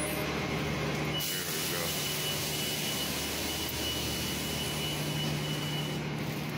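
BART train running through the station, a steady rushing noise with a low hum, and a thin high squeal from about a second in until near the end.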